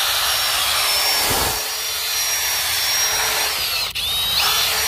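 Cordless drill running at speed, its bit grinding through the rivet that holds an exhaust hanger bracket on. The drill stops briefly about four seconds in, then spins up again with a rising whine.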